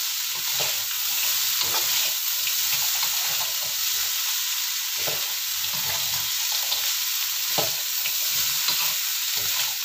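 Diced taro frying in chilli sambal in a wok, a steady sizzle broken by the irregular scrape and knock of a spatula stirring and tossing the pieces.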